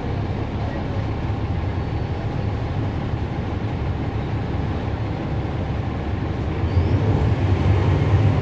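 Cummins ISL9 inline-six diesel of a 2012 NABI 40-SFW transit bus, heard from inside the bus, running steadily. It gets louder about seven seconds in.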